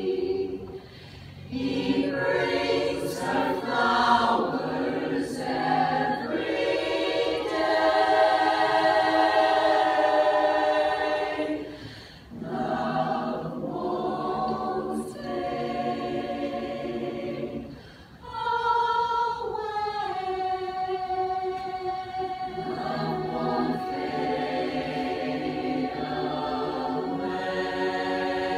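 Women's chorus singing unaccompanied in harmony, sustaining chords in long phrases, with three short breaks between phrases.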